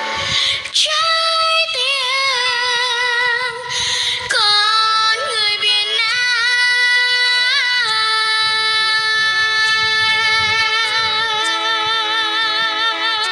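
Background music with a high female voice singing long, wavering held notes without clear words; the last note is held from about eight seconds in.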